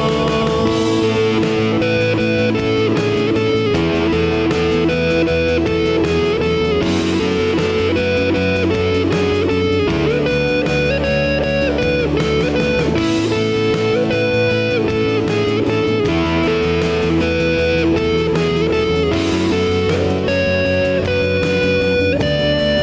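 Church praise band playing an instrumental interlude of a worship song, guitar-led, with no singing.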